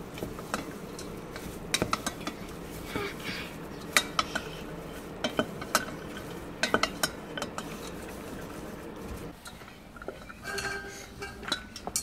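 A spatula stirring popcorn in a stainless steel pot, giving irregular scrapes, clicks and knocks against the pot's sides as the popcorn is coated in caramelising sugar syrup.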